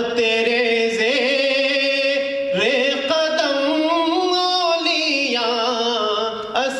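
A man singing a manqabat, an Urdu devotional poem in praise of a saint, in a solo voice that holds long notes with slow slides in pitch, starting a new phrase with a rising note about two and a half seconds in.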